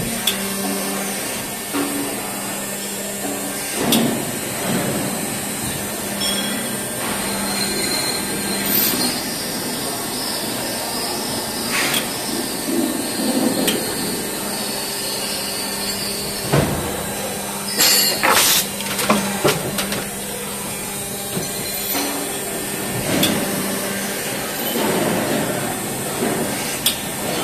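Plastic injection moulding machine running a food-container lid mould: a steady machine hum with a low tone, broken by several sharp metallic clanks and knocks, including a quick cluster about two-thirds of the way through.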